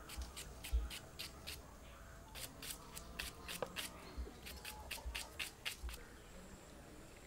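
Small knife slicing thin slivers off a whole onion held in the hand, a short crisp crunch with each cut, about three cuts a second with a brief pause, stopping about six seconds in. A few dull low thumps come in among the cuts.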